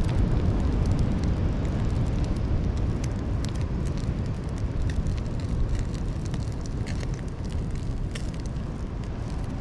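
Small twig campfire crackling, with scattered sharp pops under a fish on a wire grill, over a steady low rumble.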